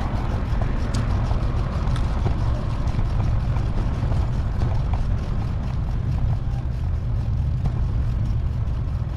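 Steady low rumble of wind and road noise from a moving bicycle, with a few faint ticks, in a recording played back at four times speed.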